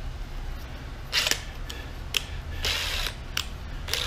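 Clicks and brief scuffing noises of a clear plastic gauge-cluster lens being handled, coming a few times, over a steady low hum.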